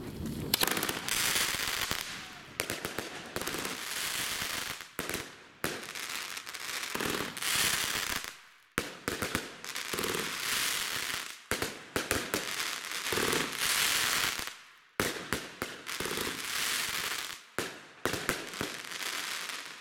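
Nordlicht Feuerwerk "Zimmermanns Crackling Monster", a 36-shot fan cake, firing: shots followed by dense crackling from the bursting crackle stars. It comes in waves with brief lulls about 5, 8½ and 15 seconds in, and stops near the end.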